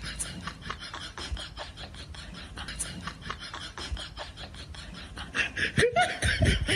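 A cat's paws and claws scuffling and skittering on a wooden floor: an irregular run of scratchy taps and rubs, growing louder near the end, where a brief voice-like pitched sound also comes in.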